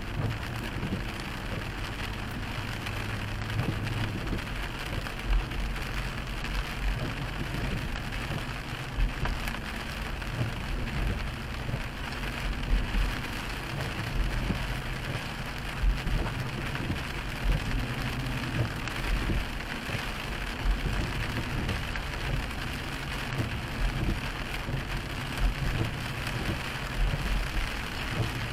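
Steady rain hitting a car's windshield, heard from inside the moving car over a low rumble of the engine and tyres on the wet road.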